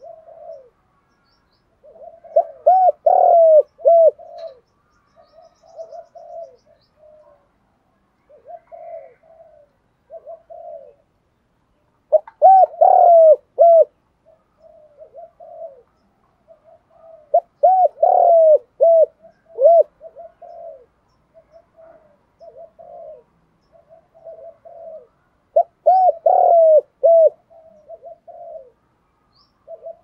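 Spotted dove cooing in repeated phrases: four loud phrases of several short coo notes each, with softer coos in between.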